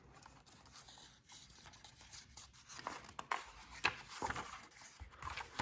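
Almost silent at first, then faint paper rustling and a few soft clicks from about the middle on, as picture-book pages are turned and handled.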